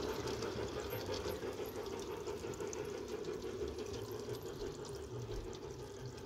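LGB Mogul G-scale model locomotive's electric motor and gears running with the train's wheels on the track, a steady hum that fades slowly as the train moves away.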